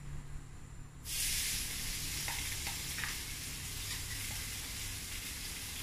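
Pounded spice paste of ginger, garlic, shallots and dried anchovies dropped into hot oil in a frying pan: a sizzle starts suddenly about a second in and carries on steadily, with a few light taps of the spatula in the pan.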